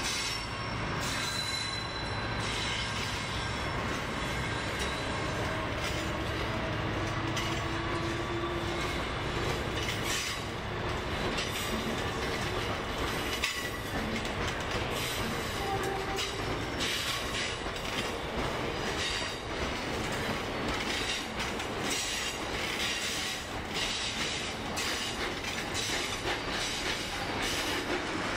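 Freight train of hopper wagons rolling past behind a Class 59 diesel locomotive, whose engine hum fades over the first few seconds. Wagon wheels clatter steadily over the rail joints, with a few brief wheel squeals.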